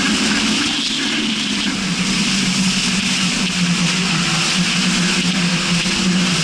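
Bombardier Sea-Doo jet ski running steadily at speed, its engine a constant drone under the rush of wind and spray on the microphone.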